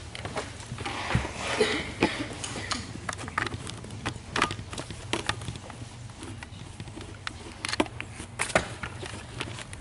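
Irregular clicks and knocks over a steady low hum.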